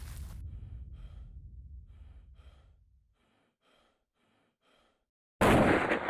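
A single hunting rifle shot about five and a half seconds in: a sudden loud crack followed by a rolling echo that fades over more than a second. Before it, soft breathing over a fading low rumble, then a short near-quiet stretch.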